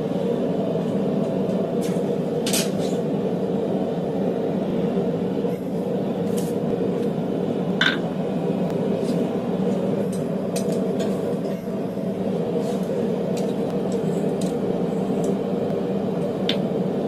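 A forge running with a steady low rushing noise. A few light metallic clinks of tools on steel sit on top of it, the loudest about eight seconds in.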